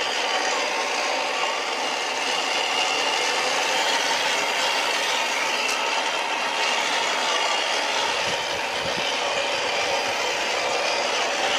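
Electric motor and gear drivetrain of a radio-controlled off-road scale car running steadily with a rasping whine, and a few dull thumps near the end.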